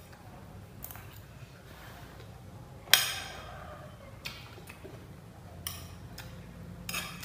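Metal spoon clinking against a ceramic bowl during eating: a handful of separate clicks, the loudest about three seconds in with a short ring after it.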